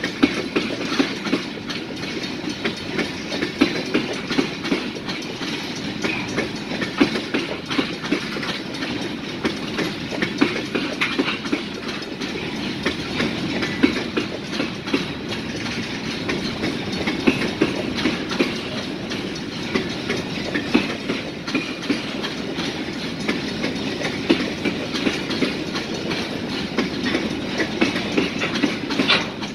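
Freight train of tank cars and covered hopper cars rolling past at a grade crossing, its wheels clicking over the rail joints in a steady, uneven clickety-clack over a continuous rolling rumble.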